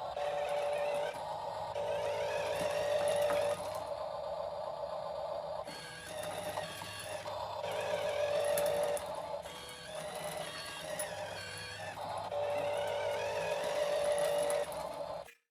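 Background music with a wavering melody over held chords, cutting off abruptly near the end.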